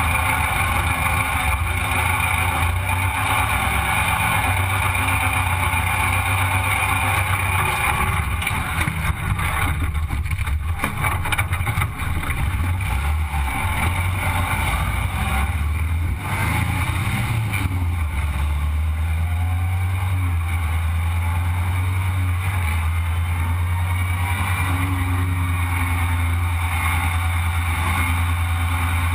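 Sandrail dune buggy's engine running under way, a steady low drone with wind noise over the open frame; the engine note shifts a little past the middle and then holds steady again.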